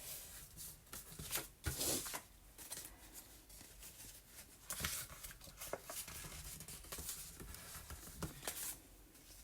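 Scrap paper rustling and crinkling as it is handled, in short scattered rustles with a few louder crackles.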